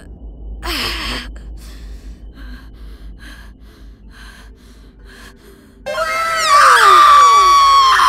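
A short gasp about a second in, then faint scattered sounds. From about six seconds in comes a loud dramatic sting of repeated falling tones, which cuts off suddenly at the end.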